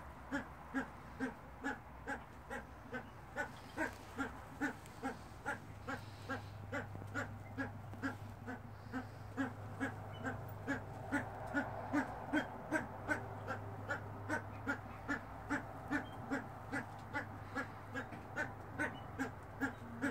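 Himalayan monal giving short, low call notes, repeated evenly about twice a second.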